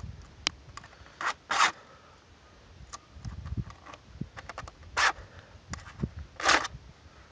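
Hand file rasping across the teeth of a chainsaw chain in four short strokes, a pair about a second in and another pair near the end, with light metal clicks between.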